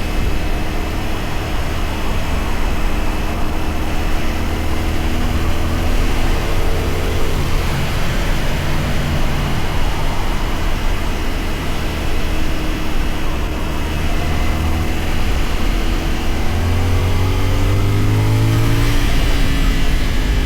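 CFMoto 450SR motorcycle's parallel-twin engine running on the move, its pitch shifting with the throttle and climbing steadily in the last few seconds as it accelerates.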